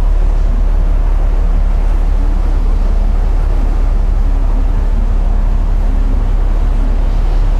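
Sakurajima ferry's engines running with a steady, deep low rumble, unchanging throughout.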